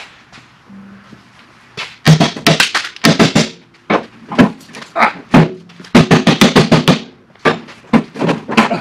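The sheet-metal hood and grille of a 1948 Silver King tractor rattle and clank as they are rocked and worked loose by hand. After a quiet start, quick clusters of sharp metallic knocks and rattles begin about two seconds in and go on, with brief pauses.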